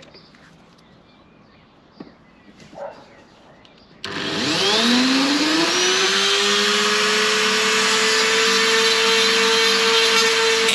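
Dremel-type handheld rotary tool switched on about four seconds in. It spins up with a rising whine, then runs steadily at high speed.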